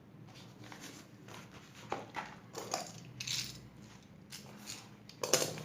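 Packaging being handled: soft rustling with a scatter of light clicks and taps, the sharpest just after two seconds in and near the end.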